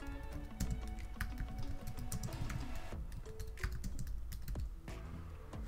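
Computer keyboard typing: a run of quick, irregular keystrokes, over soft background music.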